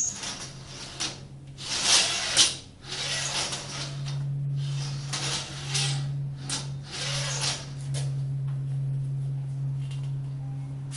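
An ultrasonic pipe-thickness measuring rig at work, giving a series of short hissing bursts. A steady low machine hum comes in about three seconds in and runs on under them.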